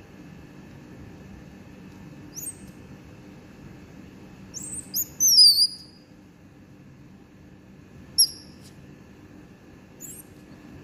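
Baby banded leaf monkey giving short high-pitched squeaks that fall in pitch. The loudest is a cluster of several squeals about halfway through, with single squeaks a couple of seconds in, around eight seconds and near the end. A faint steady hum runs underneath.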